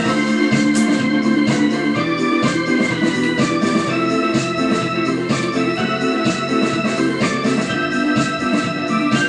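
Eurobeat dance music: organ-like electronic keyboard chords that change every second or so over a steady, driving beat.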